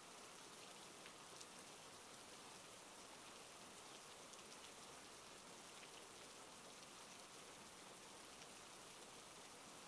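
Faint, steady rainfall: an even hiss with a few scattered drop ticks.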